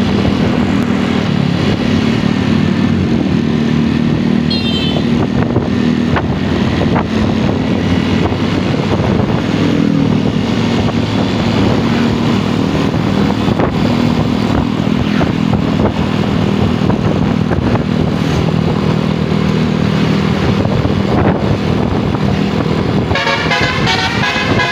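Bus engine running steadily close by. About a second and a half before the end, a basuri multi-tone musical horn starts playing a warbling telolet tune.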